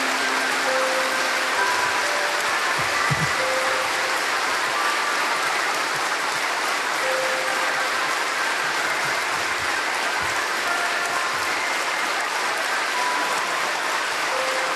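A large assembly applauding steadily and without a break.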